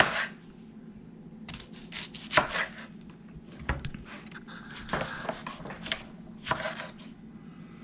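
Kitchen knife slicing a peeled white onion into rings on a wooden cutting board: a crunch as the blade goes through, then a knock on the board, about half a dozen times at uneven intervals.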